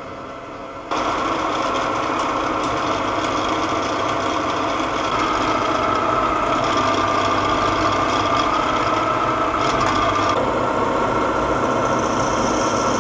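Benchtop drill press running, its bit drilling small holes through thin stainless steel sheet: a steady motor hum with a high cutting whine. It gets suddenly louder about a second in and shifts in tone a couple of times.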